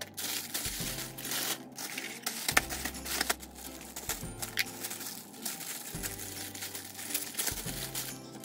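Plastic courier mailer bag crinkling and rustling as it is handled and opened by hand, over background music with a held, slowly changing bass line.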